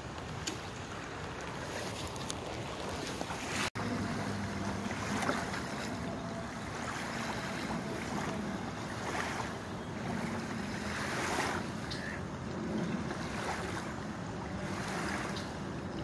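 Steady outdoor wind and water noise at a shoreline, with wind buffeting the microphone. The sound drops out for an instant a little under four seconds in.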